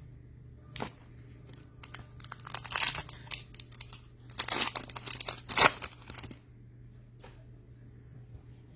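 Trading card pack wrapper being torn open and crinkled by hand: a brief crackle about a second in, then about four seconds of tearing and crinkling wrapper.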